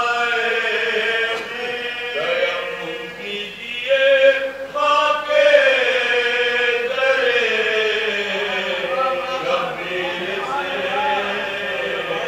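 Men chanting a marsiya, a sung Urdu elegy, through microphones in slow, drawn-out melodic lines, holding long notes that slide gently in pitch.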